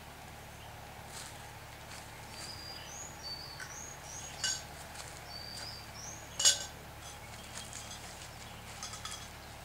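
Metal greenhouse frame pieces clinking together, two sharp ringing clinks about four and a half and six and a half seconds in, the second the louder, with lighter ticks of handled parts. A bird sings a run of short whistled notes in the background.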